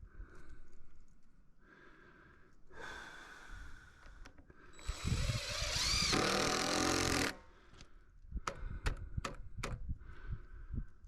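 A power tool's motor runs for about two and a half seconds, its pitch rising and then falling, followed by a few sharp knocks.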